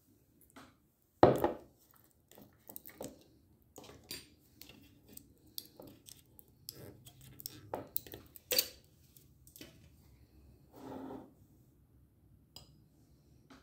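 A glass jar being handled on a hard tabletop: a loud knock about a second in as it is set down, then a run of small clicks, scrapes and rustles as it is opened, and a metal spoon tapping against the glass.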